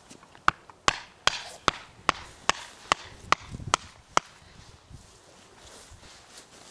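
A mallet driving a tent peg into the ground: about ten sharp knocks at an even pace, roughly two and a half a second, stopping a little after four seconds in.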